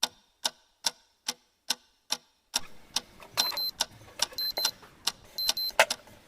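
A clock ticking, a little over two ticks a second. About two and a half seconds in, a beat starts, and over it an electronic alarm clock beeps in short quick pairs about once a second.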